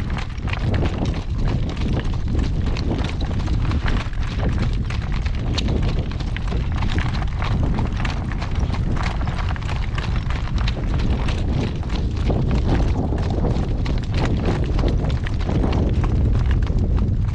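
Hoofbeats of a shod horse on a hard road surface, its new metal shoes clip-clopping in a steady run of strikes, over a steady low rumble.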